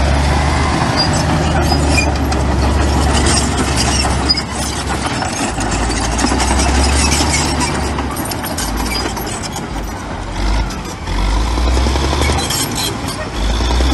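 Heavy diesel earthmoving machinery running, its low engine drone swelling and dropping as the load changes, with frequent metallic clanks and rattles.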